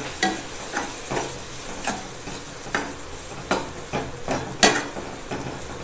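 A spatula scraping and knocking against a stainless steel kadai in irregular strokes, about one or two a second, as a vegetable and spice mixture is stirred and sautéed, over a steady low sizzle of frying.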